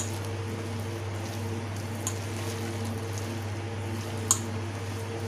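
Hand mixing a thick potato-onion and wheat-flour pakora batter in a steel bowl, with three short sharp clicks against the bowl, the loudest near the end, over a steady low hum.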